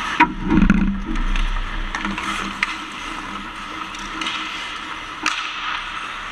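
Ice hockey play close to the goal: skates scraping and carving the ice, with a few sharp clacks of sticks and puck. There is a louder low rumbling knock about half a second in.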